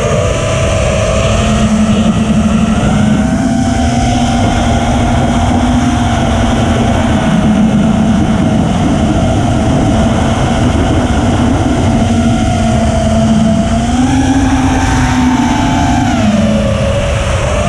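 Brushless motors and propellers of a 5-inch FPV racing quadcopter (iFlight Xing 2207 1800KV motors) whining as recorded by its onboard camera, the pitch drifting up and down with throttle: it climbs about three quarters of the way through and drops near the end. A steady rushing noise lies beneath.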